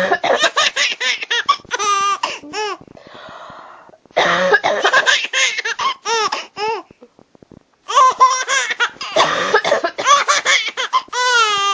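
A 4-month-old baby laughing hysterically in squealing, rising-and-falling peals, in three bouts with short pauses between them, each set off by a woman's cough.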